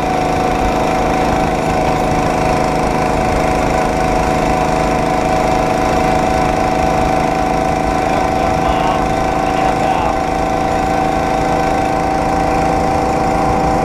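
Engine of a homemade motorized rail cart running at a steady speed as the cart rolls along the track, its pitch holding constant.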